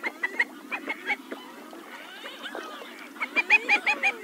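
Several common pochards calling together: short pitched calls in quick, overlapping runs, with lower gliding notes between them. The loudest run comes near the end, about five calls in a little over half a second.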